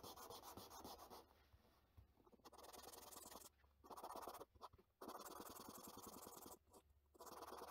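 Faint rasping of a small resin part being rubbed back and forth on sandpaper fixed to a wooden block, in several separate runs of strokes with short pauses between.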